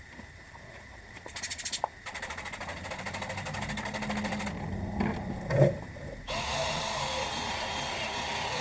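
Cordless 12-volt 3-inch sander/polisher running against a plastic headlight lens with a 2000-grit sanding disc, a fast even rhythm. It stops briefly, with a thump about five and a half seconds in, then starts again about six seconds in and runs on steadily.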